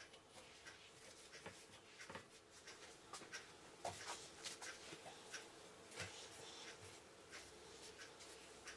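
Faint handling sounds: scattered light clicks and taps as soft taco breads are hung over the wires of a metal oven rack, a few slightly louder in the middle, over near silence.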